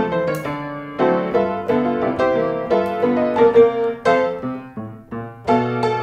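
Background piano music: a melody of separate notes over chords, each note struck and fading.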